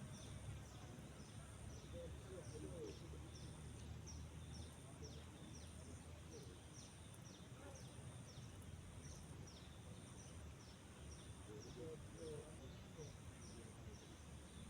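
Faint wildlife ambience: a short, high, falling chirp repeated about twice a second and a steady high buzz with brief regular breaks, over a low rumble.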